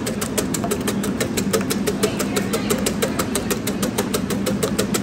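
Wire whisk beating eggs in a stainless steel bowl: a rapid, even clatter of the tines striking the metal, over a steady low hum.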